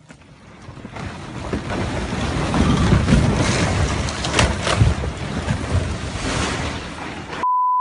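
Rockslide: a large mass of rock collapsing and crashing down with a heavy rumble that builds over the first second, with a few sharp cracks about four and a half seconds in. Near the end it cuts off suddenly into a steady censor bleep.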